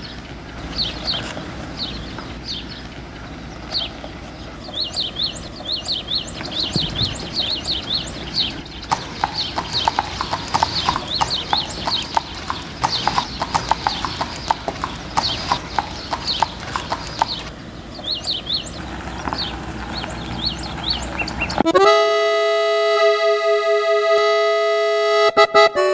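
A horse's hooves clip-clopping at a walk on brick paving, with short high chirps over a steady background hiss. Near the end a button accordion comes in with one loud held chord, opening a norteño song.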